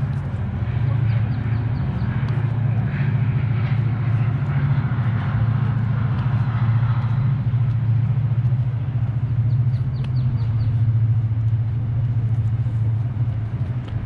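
Outdoor city ambience: a steady low rumble throughout, with faint voices about a third of the way in and a few short runs of quick high ticks.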